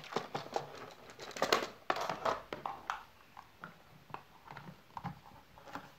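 Hard plastic vacuum cleaner attachments being handled: a quick run of clicks, knocks and scrapes as the floor brush head is worked off the extension tube and a wide nozzle is picked up, loudest about one and a half to two seconds in, then a few lighter knocks.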